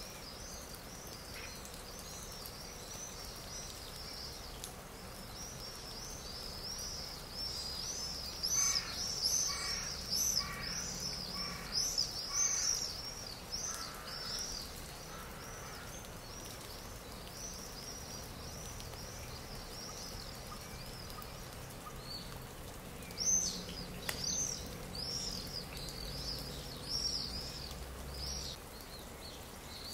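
Nature-sound ambience of many small birds chirping and twittering continuously in a high register. From about nine to thirteen seconds in, another bird gives a run of about six louder, lower calls, roughly two a second.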